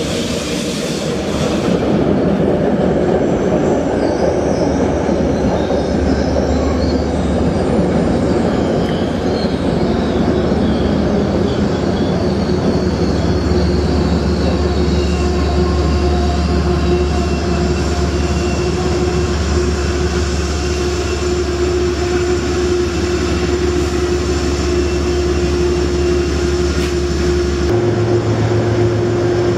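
Metro-North commuter train running through an elevated station: a steady rumble of wheels on rail with a held hum and high wheel squeal. Near the end the rumble changes abruptly.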